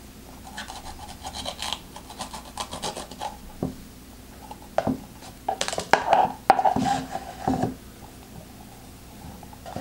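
Serrated core spoon scraping and cutting around the inside wall of a green pepper, in scratchy strokes with a few sharp knocks. The scraping comes in two runs, the second, about halfway through, the louder.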